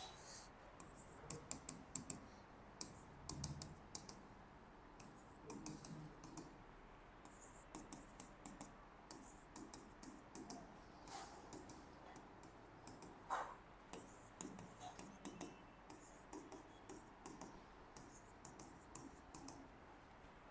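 Faint, irregular scratching and tapping of writing strokes in short clusters, with an occasional light knock.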